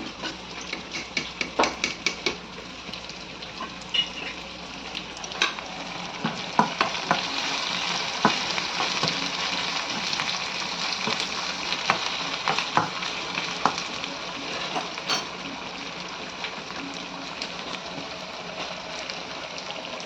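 Food sizzling in hot oil in a pan while it is stirred, with the spoon clicking against the pan in quick runs in the first couple of seconds and again in the middle. The sizzle swells for several seconds in the middle, then settles.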